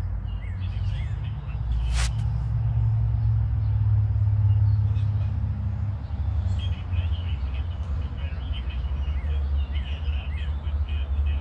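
A low, steady engine rumble, a little louder during the first half, with small bird chirps over it and a single click about two seconds in.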